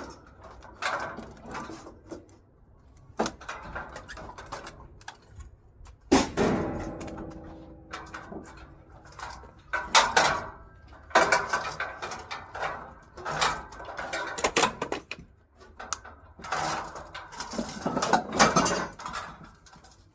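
Scrap metal being handled: a series of clanks and knocks of metal pieces against one another. A heavier hit about six seconds in leaves a ringing metallic note for a couple of seconds.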